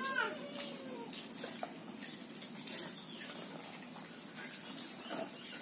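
An insect trilling steadily: a high, evenly pulsing tone that carries on without a break.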